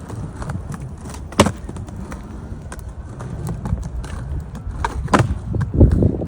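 Wind buffeting the microphone in an irregular low rumble, with a few sharp clicks, the loudest about a second and a half in and again about five seconds in.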